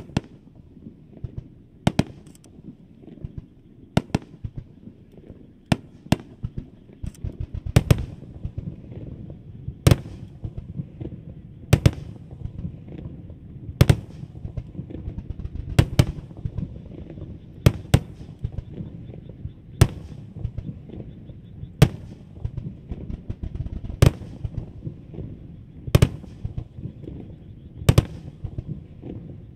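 Fireworks bursting: a sharp bang about every two seconds, with smaller pops in between over a continuous low rumble.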